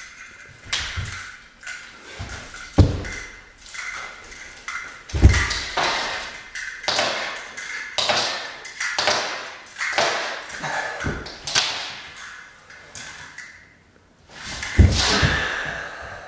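A body thudding a few times onto a yoga mat over a wooden floor as a man drops and lies down, among repeated hissing rushes and a faint steady ringing tone.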